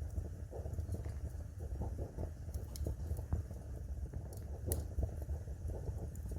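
Wood fire burning in a fireplace: a steady low rumble of flames with irregular crackles and pops, one sharper pop about three-quarters of the way through.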